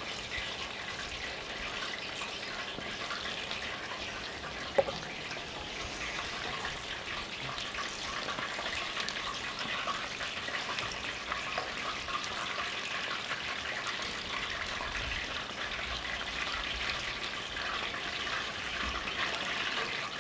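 Chicken wings deep-frying in hot oil in cast-iron Dutch ovens: a steady sizzle and crackle, with a single sharp clink about five seconds in.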